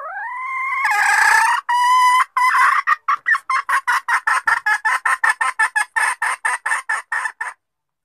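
Red junglefowl hen calling: a drawn-out note rising in pitch, a second shorter note, then a fast run of short clucks, about six a second, that stops sharply. A lure call, sold as a hen calling for a mate.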